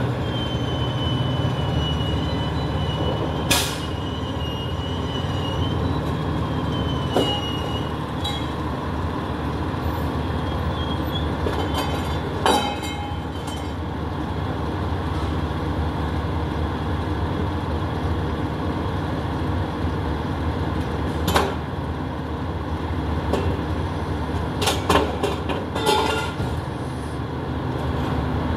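Garbage truck's diesel engine running steadily, with a high squeal in the first several seconds as the truck rolls forward and stops. Scattered metal bangs and clatters from the rear-loader body and the trash being loaded, a cluster of them near the end.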